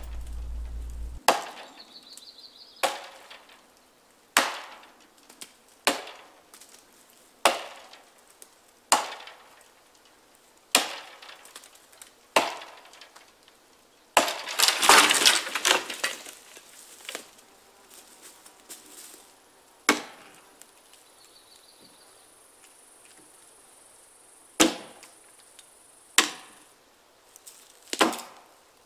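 Axe chopping into a dead leaning tree, one sharp chop about every second and a half. About halfway through comes a longer burst of cracking and splintering as the wood gives way, then a few more spaced chops.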